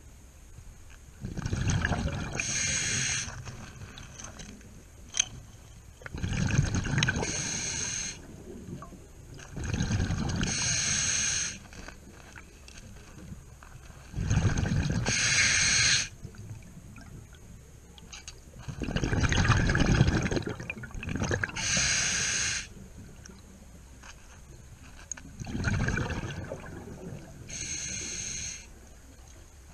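Scuba diver breathing through a regulator underwater: a regular cycle of bubbling exhalations and hissing inhalations through the demand valve, about six breaths, one every five seconds or so.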